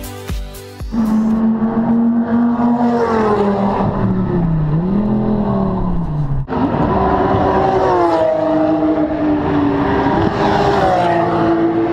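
Racing car engines running hard at a circuit, the engine note holding, falling and rising again as the cars accelerate and pass. The sound cuts sharply about six and a half seconds in to another engine.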